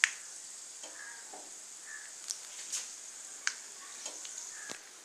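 Mustard seeds spluttering in hot oil in a wok: a steady sizzle with a sharp pop every second or so, the loudest right at the start.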